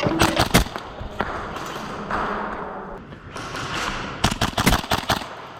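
Airsoft guns firing: two short bursts of sharp cracks, one near the start and one about four seconds in.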